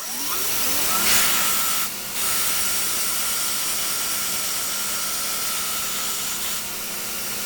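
Power grinder spinning up, then grinding steel in a steady hiss over a motor hum as the back edge of a steel piece is chamfered, with a brief break in the grinding about two seconds in.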